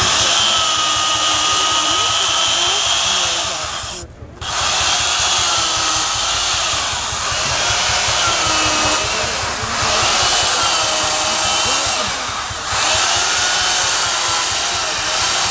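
Small two-stroke carving chainsaw running at high revs and cutting into a wooden block, its pitch wavering as it takes the load. It drops out briefly about four seconds in, then starts up again.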